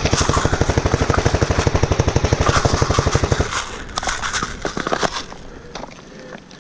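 Airsoft rifle firing a long full-auto burst, a fast even rattle of shots that stops about three and a half seconds in, followed by a few scattered single shots or clicks.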